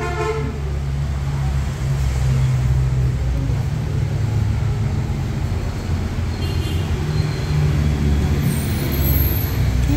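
A steady, loud low rumble, like engine or road noise.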